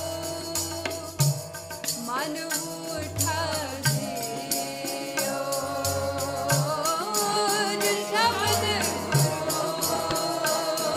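Gurbani kirtan: a woman singing a Sikh hymn with gliding melodic lines over steady held harmonium notes, with a regular beat of jingling percussion and low drum strokes.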